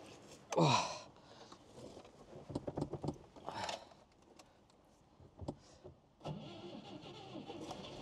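Moskvich 2140's UZAM-412 four-cylinder petrol engine cold-started after standing all winter: it catches almost at once about six seconds in and settles into a steady run. Before that there are a short falling-pitched sound about half a second in and a few clicks and rattles.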